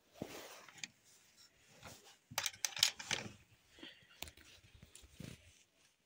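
Faint, irregular rustles and clicks from footsteps on straw-strewn ground and handling of the phone while it is carried, with a busier cluster of rustling a little over two seconds in.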